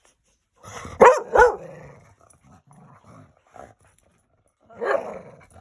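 Dogs play-wrestling: two sharp barks about a second in, then low growling, and another bark near the end.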